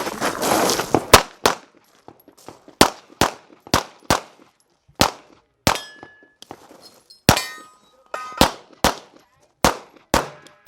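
A string of pistol shots fired at an uneven pace during a timed stage, a few in quick pairs, with pauses between target arrays. After some hits, steel targets ring with a metallic clang.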